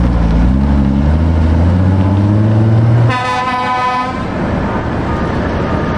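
Vintage Foden lorry's diesel engine pulling away under load, its pitch rising steadily for about three seconds, then one truck-horn toot lasting about a second as the lorry passes.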